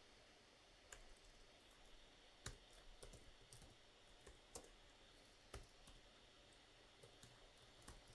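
Faint, irregular clicks of keys being pressed on a computer keyboard as a few words are typed, spaced about a second apart with some closer together.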